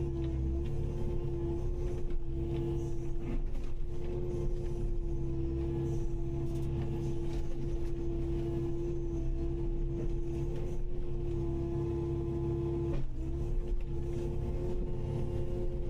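Kubota KX080-5 excavator's diesel engine running steadily under work, a constant tone over a low rumble. The pitch dips briefly about 13 seconds in.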